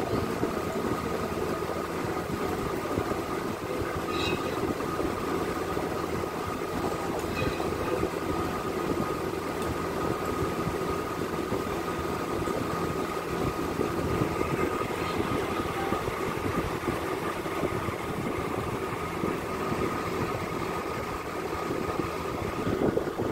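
Steady mechanical hum with a faint constant high whine, unbroken throughout; a couple of faint, brief higher sounds about four and seven seconds in.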